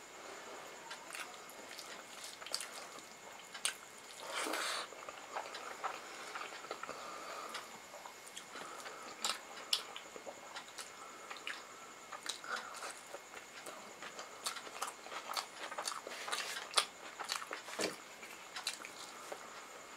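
Close-miked chewing and wet mouth clicks of someone eating rice and pakoda curry with her fingers, with soft squishing as her hand mixes rice into the gravy.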